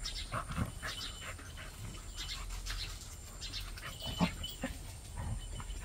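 Two dogs, a beagle and a tan dog, play-fighting, with short snarls, yips and panting coming in quick scattered spurts. The loudest comes about four seconds in.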